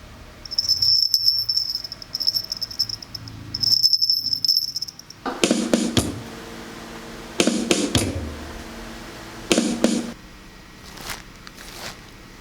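A cricket-like sound effect: three trilled chirps on one high tone, then three short, harsh, buzzy rasps a couple of seconds apart.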